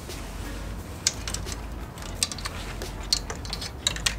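Scattered small clicks and light rattles of wiring and plastic parts being handled by hand, at irregular moments.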